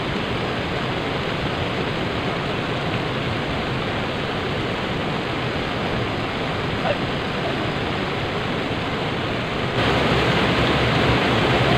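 Steady rush of flowing river water, a continuous hiss that grows louder abruptly about ten seconds in.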